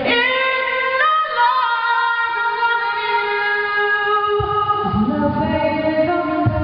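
Unaccompanied female singing: long held notes that step to a new pitch every second or so, with a lower part coming in about five seconds in.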